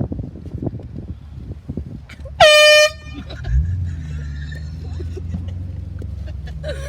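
A single blast of an air horn lasting about half a second, sliding briefly up in pitch as it starts. About a second later a car engine comes in with a steady low hum as the car pulls away.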